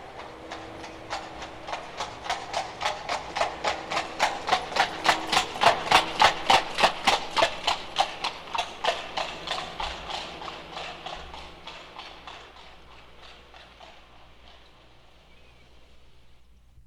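Shod horse's hooves clip-clopping on hard pavement in a steady rhythm, growing louder as the horse approaches, loudest about six seconds in, then fading as it moves away.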